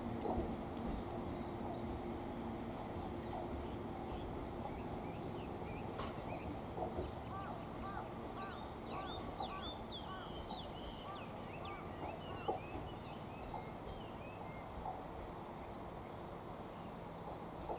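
Rural summer ambience: a steady high buzz of insects, with a bird chirping a run of short repeated notes in the middle, over a constant low rumble. A faint low hum fades out in the first few seconds.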